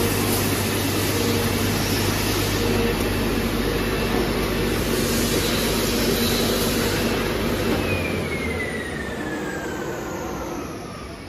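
CNC oscillating knife cutting machine running, a steady dense hum and hiss. About eight seconds in the low hum stops and a whine falls steadily in pitch as a motor spins down.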